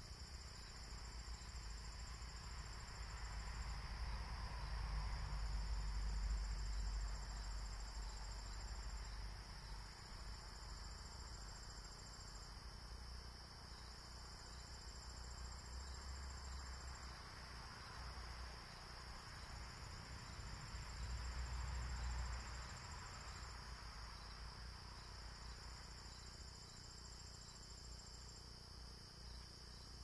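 Evening insect chorus: crickets giving a steady high-pitched buzz, with a second, higher trill that comes and goes in stretches of about two seconds. A low rumble swells twice, about five seconds in and again around twenty-two seconds.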